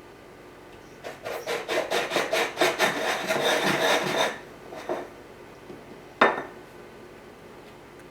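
Quick rubbing and scraping strokes against a board for about three seconds, then one sharp knock a couple of seconds later.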